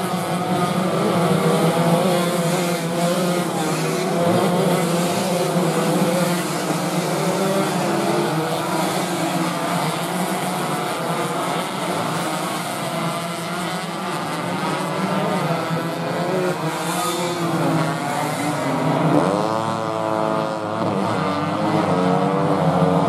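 A pack of 125 cc two-stroke underbone racing motorcycles running hard together, several high-revving engines overlapping, their pitches rising and falling as the riders work the throttle through the corners, over a steady low drone. About nineteen seconds in, one engine's pitch climbs steeply as it revs up close by.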